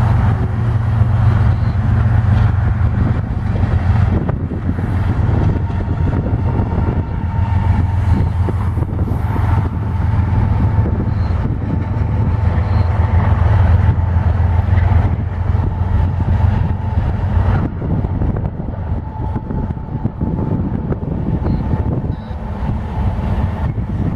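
CSX freight train rolling past with a steady low rumble that eases off about two-thirds of the way through.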